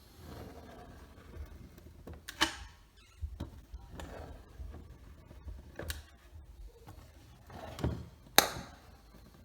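Scattered knocks and clicks from laminate stair pieces and small wooden holders being handled and set in place, with two sharper knocks about two and a half seconds in and near the end.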